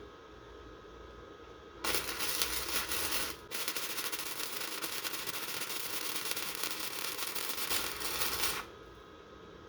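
Welding arc crackling as a practice bead is run along a line on a piece of metal. It starts about two seconds in, breaks off for an instant, restarts, and cuts off shortly before the end.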